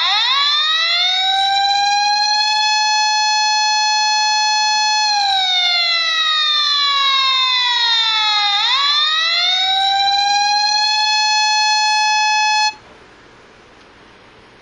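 Japanese police car siren wailing: the pitch rises and holds, falls slowly, rises again and holds, then cuts off near the end.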